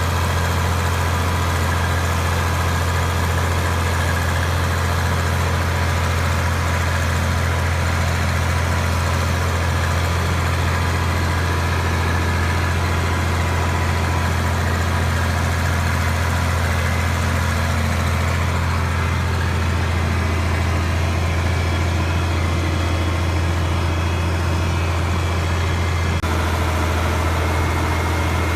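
A steady, unchanging low engine drone, like an engine idling, with a slight shift in tone about 26 seconds in.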